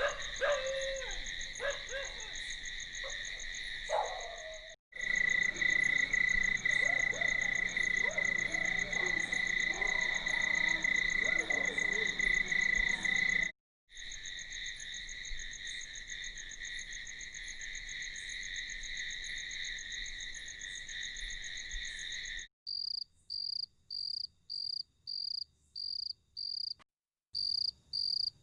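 Night chorus of crickets trilling steadily, with frogs calling over them in the first half. Near the end it changes to a single cricket chirping in even pulses, about two a second.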